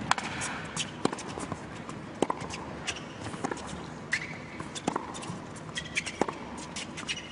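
Indoor tennis arena between points: scattered sharp clicks and knocks from the court over a low, steady background of crowd noise.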